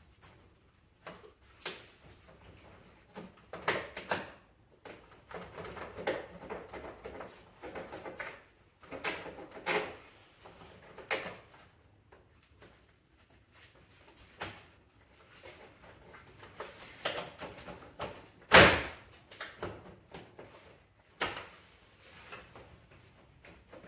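Irregular clicks, knocks and rattles of an airbox and its fittings being unclipped and lifted out of a car's engine bay by hand, with one sharp, loud knock about three-quarters of the way through.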